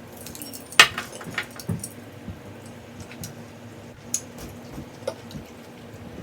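Artificial eucalyptus stems and their plastic packaging being handled: light rustling with scattered sharp clicks and taps, the loudest about a second in.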